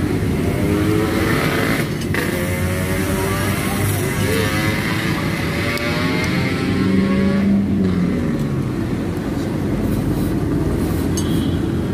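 Road traffic: engines of passing motor vehicles running steadily, with one engine's pitch sliding up and down a couple of seconds in.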